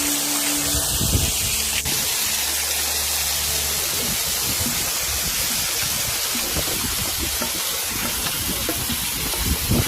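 Small waterfall rushing and spraying with a steady hiss of falling water.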